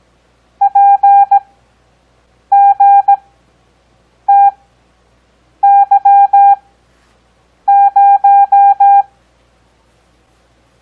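Morse code practice tone, a steady beep near 800 Hz keyed in dots and dashes at 17 WPM character speed with Farnsworth spacing for an overall 6 WPM. Five characters are sent, each a quick cluster of beeps followed by a pause of about a second, and one of them is a single short beep.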